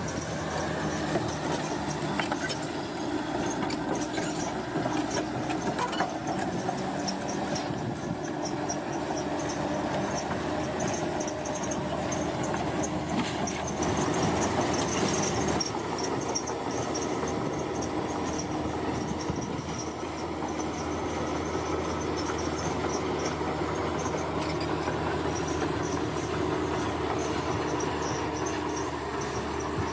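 Bulldozer's diesel engine running steadily, with scattered metallic clanks from the machine and its tracks.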